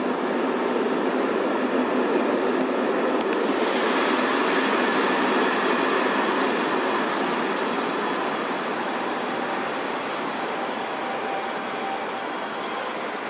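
Electric passenger train running past along the platform, a steady rushing rumble of wheels on rail. A hiss grows brighter about three seconds in, and a thin high squeal joins in during the last few seconds.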